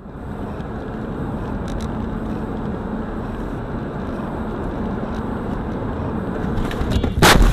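Steady road and engine noise of a car driving, heard from inside its cabin, then one loud, sudden bang about seven seconds in as the car strikes the vehicle cutting in ahead.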